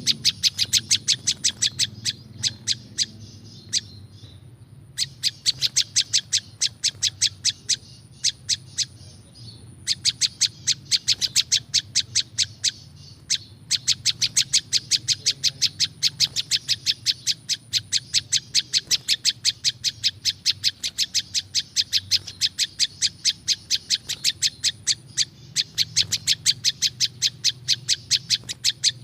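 Prinjak lumut (prenjak lumut) songbird calling: long runs of sharp, rapid chip notes, about five or six a second, broken by brief pauses.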